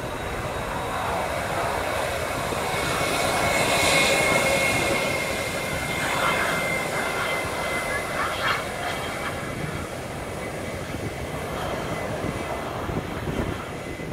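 Twin turbofan engines of a JetBlue airliner running as it taxis, a steady rushing with a thin high whine on top. It swells to its loudest about four seconds in, then eases off.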